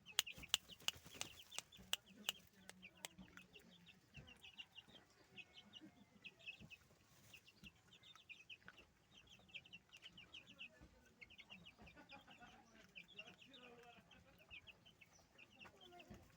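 Faint calls of chickens: many short, high-pitched peeps and clucks scattered throughout, with a few sharp clicks in the first three seconds.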